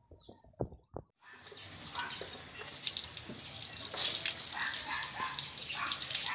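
Water from a garden hose running into the plastic jug of a poultry drinker. It starts about a second in and grows louder as the jug fills, with small splashes. Before it come a few sharp taps of Muscovy ducklings pecking on gravel.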